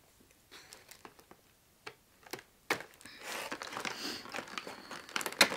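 Cardboard figure box and its plastic packaging being opened and handled: a few small clicks, then crinkling and rustling from about three seconds in, with a sharp snap near the end.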